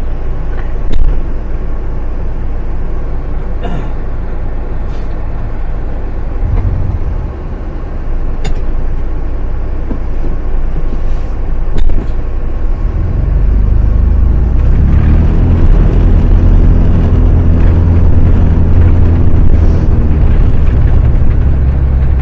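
A vehicle engine running with a low rumble, a few sharp knocks. A little over halfway through, the engine grows louder and steadier as it pulls the vehicle through deep snow.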